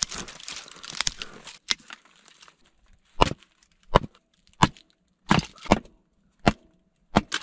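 Kindling being made from wood: a run of sharp wooden cracks, about seven in all, coming roughly one every two-thirds of a second from about three seconds in, after a second or so of rustling.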